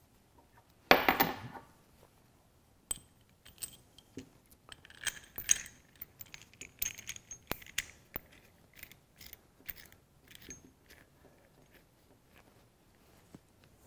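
Metal exhaust pipe expander being handled on a workbench: scattered light clicks and clinks as its threads are greased and its segments move, after a brief louder noise about a second in.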